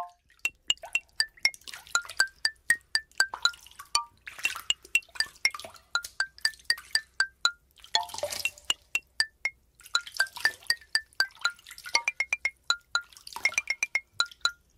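Tiny plastic micro building bricks clicking as they are pressed together, a quick run of sharp little clicks, several a second, each with a short high ping. In a few stretches loose bricks rattle as the hands sort through the pile.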